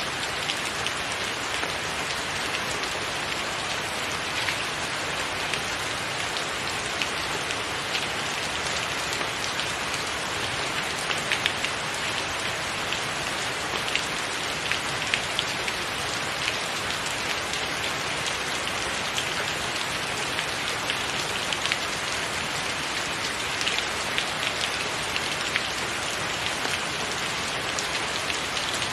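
Steady heavy rain falling on a tiled roof: an even rushing hiss with frequent sharp ticks of separate drops hitting close by.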